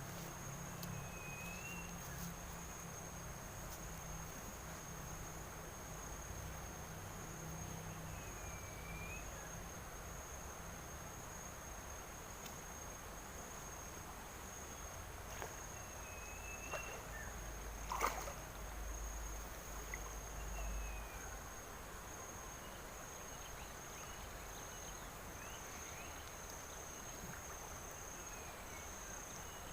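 Insects trilling steadily in one high tone by a river, with a short chirp every few seconds. A single sharp knock with a brief low rumble comes about two-thirds of the way through.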